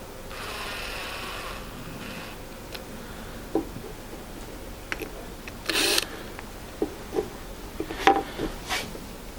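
Screws being driven into the wooden clips of a stool and the parts handled: about two seconds of rasping near the start, then scattered wooden knocks and clicks with a short scrape about six seconds in.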